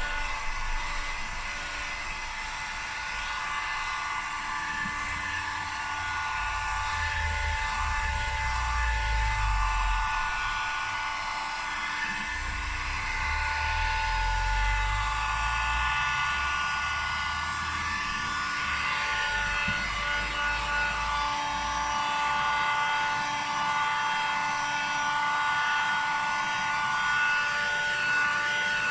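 Hot-air blower running steadily with a motor whine, heating the laptop screen to soften the adhesive holding the panel in. A low rumble comes and goes twice in the first half.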